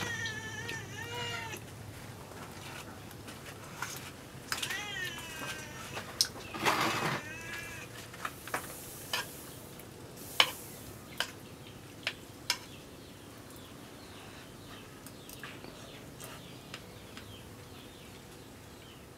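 A metal spoon clicking and scraping against a bowl now and then during eating, and three short, wavering animal calls in the first eight seconds.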